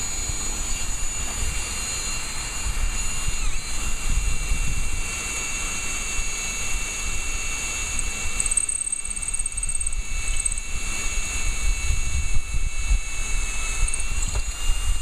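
Wind buffeting the microphone: an uneven low rumble that swells and drops with the gusts, under a faint steady high-pitched whine.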